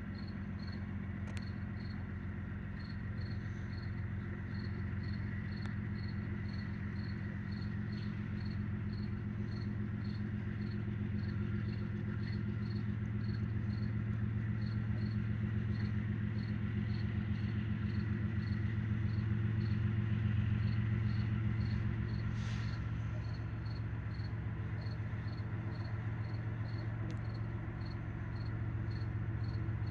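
Diesel locomotive's engine running with a steady low drone as the train approaches slowly, growing louder toward the middle, its tone shifting about two-thirds of the way through. Crickets chirp in an even pulse, about two a second.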